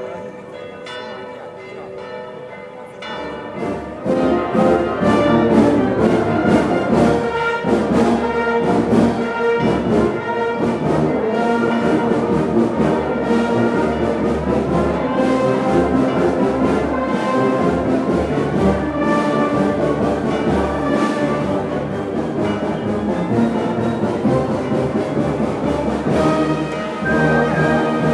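Church bells ringing, then about four seconds in a brass band starts playing loudly over them, a full ensemble of brass and drums.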